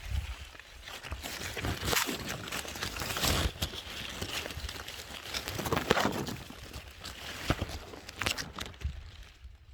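Irregular rustling and crackling, coming and going in uneven bursts, like plants or something on the ground being handled.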